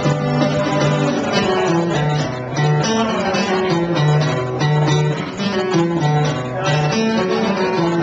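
Acoustic guitar played live, chords strummed in a steady rhythm with a repeating bass-note pattern.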